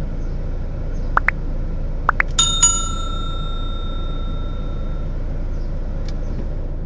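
Subscribe-button overlay sound effects over a steady low car and traffic rumble: two pairs of short rising chirps, then a bright notification-bell ding, struck twice in quick succession, that rings for about two and a half seconds.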